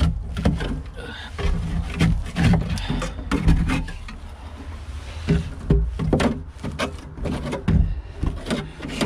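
Metal drywall scraper scraping dried pigeon droppings off wooden perches, in a series of irregular scraping strokes with short knocks against the wood.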